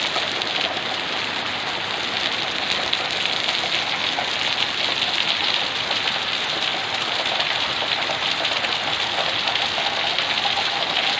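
Heavy rain pouring down in a steady, dense hiss of drops.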